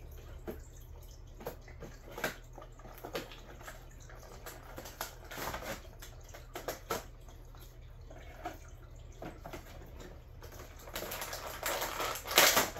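Action-figure packaging being opened by hand: a cardboard window box and its plastic tray rustling and clicking in scattered bursts, with a louder stretch of crinkling and tearing near the end.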